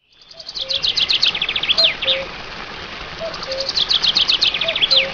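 Forest ambience of songbirds: a bird sings a fast, high trilled phrase twice, with a deeper falling two-note call repeating about every second and a half over a steady hiss. The sound fades in at the start.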